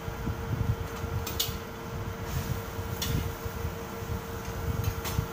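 Metal spatula stirring vegetables in a wok, scraping the pan with a few sharp clinks against the metal, over a steady low hum.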